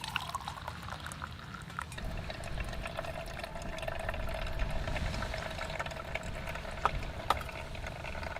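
Water bubbling in a cooking pot on a stove, with a steady low rumble and a faint steady tone, and two sharp light clicks near the end.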